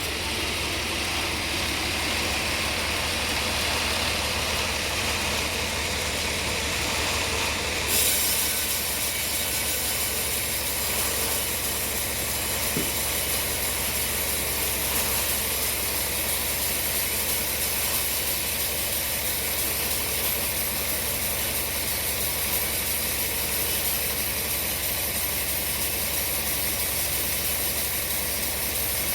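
Sawmill running, an engine-driven saw cutting a log of hard bongkeng wood: a steady engine drone with a fast low pulse under a broad hiss. About eight seconds in the high hiss suddenly gets brighter and holds.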